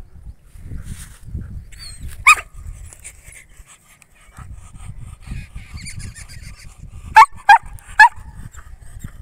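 German shepherd barking: one bark a little over two seconds in, then three quick barks close together near the end.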